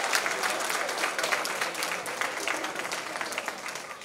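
Audience applause: many people clapping, gradually dying down.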